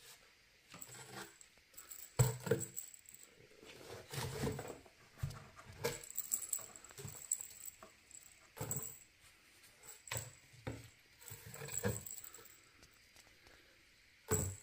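Tabby cat scrabbling about inside a cardboard box, its claws and body scratching, rustling and knocking against the cardboard in irregular bursts.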